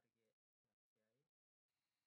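Near silence: two very faint, brief snatches of a voice, then a faint steady hiss near the end.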